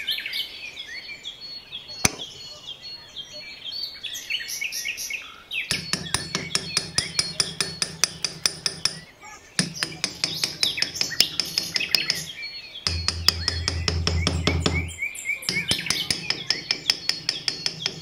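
Small birds chirping and tweeting. From about six seconds in, a fast, regular ticking of about four clicks a second joins over a low steady hum, stopping briefly a few times.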